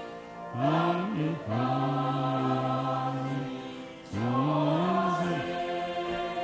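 Voices singing a Christian praise song in long held phrases, each starting with a slide up in pitch.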